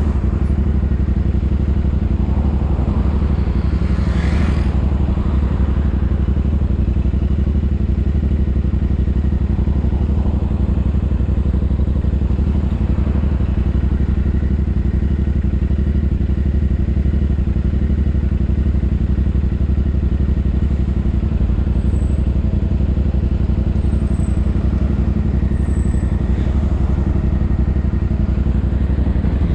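Royal Enfield Interceptor 650's parallel-twin engine and exhaust running steadily at an even pitch, heard through a GoPro's built-in microphone.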